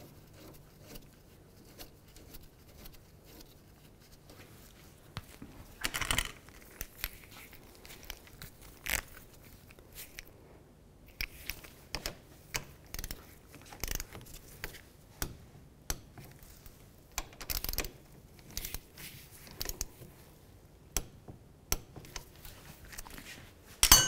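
Torque wrench ratcheting as the new brake caliper's bolts are tightened: scattered short metallic clicks, with louder clacks about six seconds in and again later.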